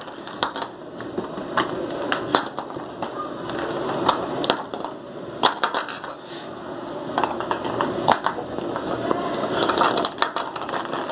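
Plastic toy food clattering and knocking as the pieces are handled and put into a bowl, with a run of irregular sharp clicks over rustling handling noise.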